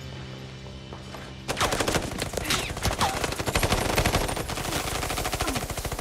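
Low sustained film score, then about a second and a half in a sudden barrage of rapid automatic gunfire breaks out and keeps going without a pause.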